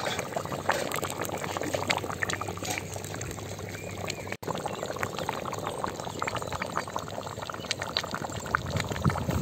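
Thick fish curry (kulambu) boiling in a pot: a steady bubbling with many small pops and crackles, with a brief break about four seconds in.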